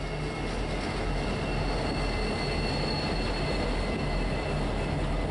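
Norfolk Southern diesel-electric locomotives running light past, a steady rumble of engines and steel wheels on the rails that carries on after the last unit has gone by.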